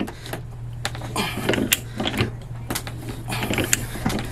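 HFS TAR-100 manual pipe threader's ratchet handle clicking irregularly while its dies cut threads into 1-inch black iron pipe, with scraping of the cut between clicks. The dies have several broken teeth, so the cutting is hard going.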